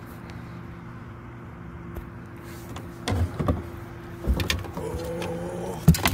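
Boat motor running steadily at trolling speed, a low even hum, with a few sharp knocks from handling the fish and net in the boat about three, four and six seconds in.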